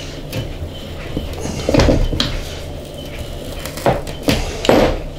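Knocks and clunks of a sand-filled copper tube and a small rubber-and-metal pulley being handled on a wooden workbench as the tube is bent by hand around the pulley. The knocks are scattered, with a louder cluster of three near the end.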